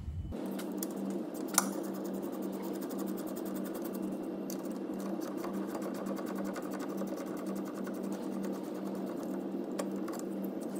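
Cordless impact driver with a 7 mm Allen socket undoing a brake caliper slider bolt on a VW Polo, running steadily with a fast even rattle. One sharp click comes about a second and a half in.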